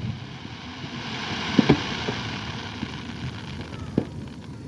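Fireworks going off: sharp bangs, two close together about a second and a half in and another near the end, over a hissing haze that swells and fades.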